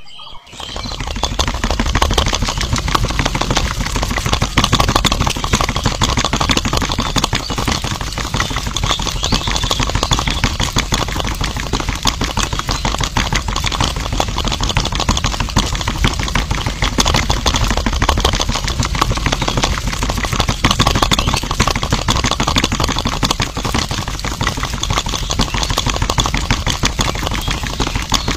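Small motor of a home-made toy concrete mixer, switched on and running steadily with a fast, even clatter as the drum turns its wet sand mix.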